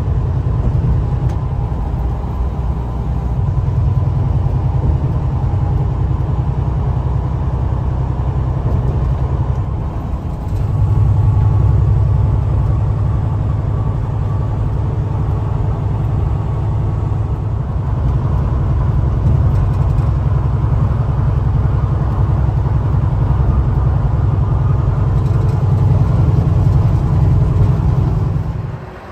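Engine and road noise inside a semi-truck cab at highway speed: a heavy, steady low drone. It steps up abruptly about ten seconds in and falls away just before the end.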